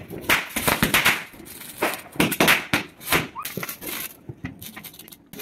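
Fireworks crackling and popping in an irregular string of sharp bursts.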